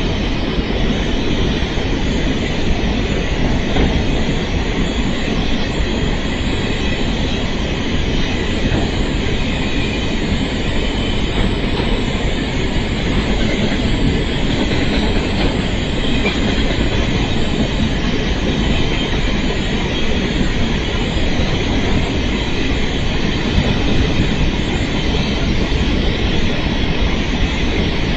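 Grain train wagons rolling steadily across a bridge: a continuous rumble of steel wheels on rail.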